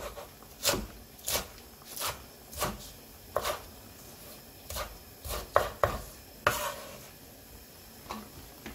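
Kitchen knife slicing through a Korean green onion onto a wooden cutting board: about a dozen sharp knocks. They come roughly one every two-thirds of a second for the first few seconds, then more unevenly, and one last stroke falls near the end after a pause.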